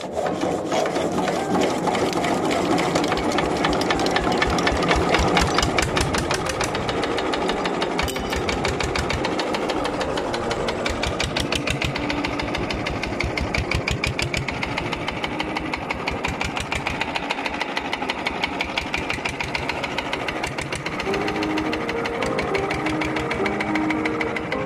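1977 Andoria S301D single-cylinder diesel catching on the hand crank after five years standing, then running with a steady, even knocking beat, loudest in the first few seconds before settling.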